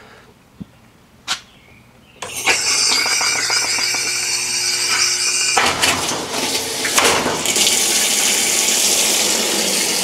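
Two short clicks, then about two seconds in the GE top-load washer starts filling: the water inlet valve opens and water rushes into the tub with a low hum under it. About halfway through the hum drops out and the sound of the water changes, but the water keeps running.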